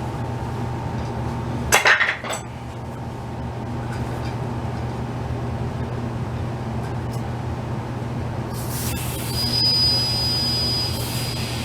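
Steady low hum under hand work on a tire and rim, with a sharp metallic clink and clatter about two seconds in. Near the end a hiss with a thin steady whistle sets in: compressed air rushing into the tire to seat the bead.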